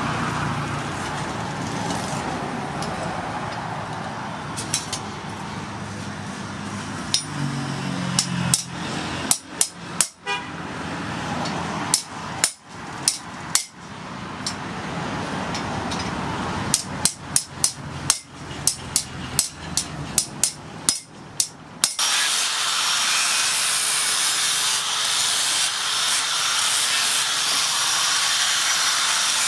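Hand hammer striking hot steel on an anvil in irregular runs of sharp blows, the last run at about two to three blows a second. About two-thirds of the way through, the hammering gives way to a steady abrasive noise with a faint wavering whine.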